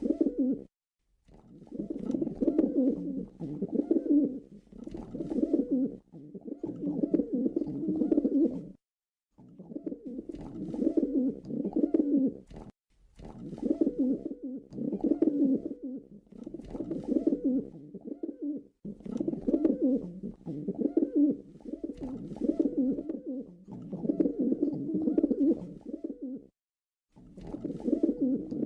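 Pigeon cooing over and over: low, pulsing coo phrases of a second or two each, about a dozen of them, with short pauses between.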